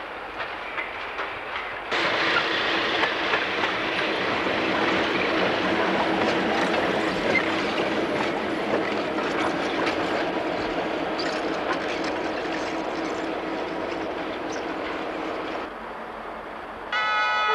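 An EMD GP7 diesel locomotive runs close by with passenger cars: its engine hums steadily under a dense rattle of wheels clicking over rail joints, with light squeals. A train horn starts to sound just before the end.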